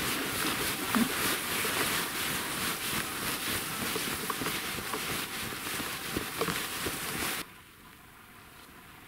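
Red cloth flags of a wolf-hunting fladry line rustling and crackling as the line is wound by hand onto a metal reel. The noise stops abruptly about seven seconds in, leaving a faint hiss.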